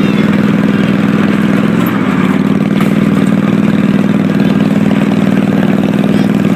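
Small engine of a miniature kiddie-ride train running steadily, dipping slightly in pitch about two seconds in.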